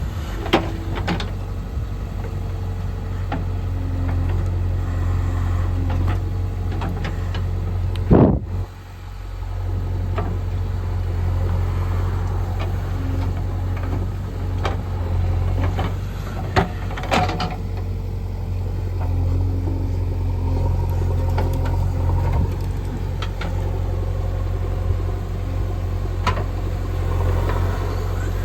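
JCB 3DX backhoe loader's diesel engine running steadily under work, with scattered sharp metallic knocks; the loudest knock comes about eight seconds in and is followed by a brief drop in the sound.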